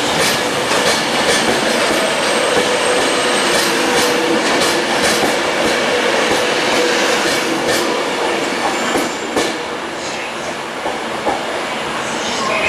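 Class 390 Pendolino electric train pulling out of the platform: a steady running tone and rush of noise, with wheels clicking over rail joints. It fades a little as the last coaches clear the platform near the end.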